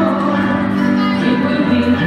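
Recorded show music for a colour guard routine, played over the hall's sound system: long held notes layered over a steady low note.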